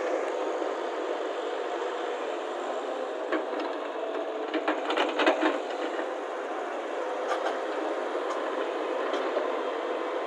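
Engine of a JCB earthmoving machine running steadily, with sharp metallic clanks and knocks: one about a third of the way in, a quick cluster around the middle and a few single ones later.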